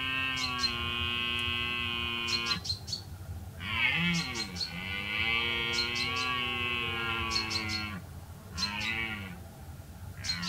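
Red deer stag roaring in the rut: one long drawn-out roar that stops about two and a half seconds in, a second long roar from about four to eight seconds that rises and then falls in pitch, and two short roars near the end.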